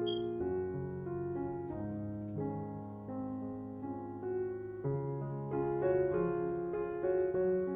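Slow instrumental piano music, soft notes held and changing every second or so over a low bass line.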